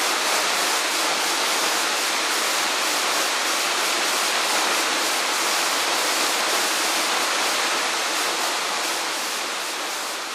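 Waterfall: a steady, dense rush of falling water that begins to fade out near the end.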